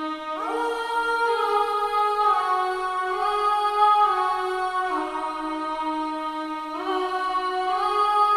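Sustained pad chords played from the Death Piano sample library in Kontakt. The chord changes every second or two, and the notes glide smoothly into the next chord.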